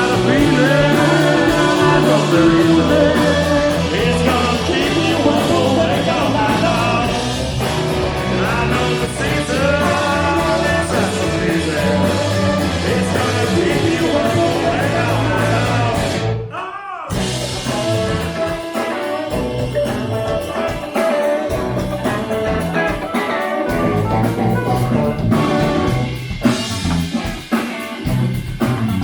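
A live band playing a rock song: a singer over electric guitar, bass and drum kit. About halfway through the band stops dead for a moment, then comes straight back in.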